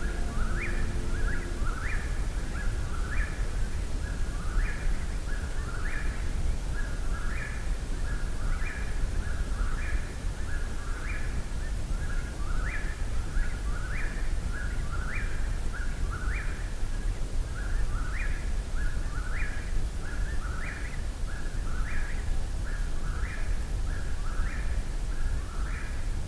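A night-singing bird repeating the same short song phrase over and over, about once a second, each phrase ending on a rising note, over a steady low rumble.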